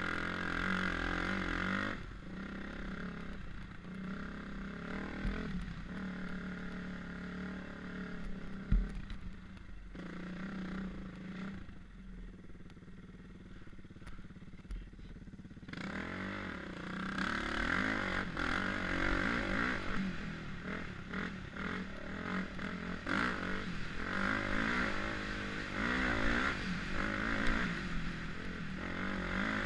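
Dirt bike engine running on a trail, its pitch rising and falling with the throttle. About halfway through it eases off for several seconds, then pulls harder with quick revs, with a sharp knock near the ninth second.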